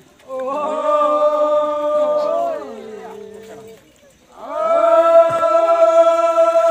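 Several men's voices chanting together in long, held notes. There are two drawn-out phrases with a brief lull just past the middle.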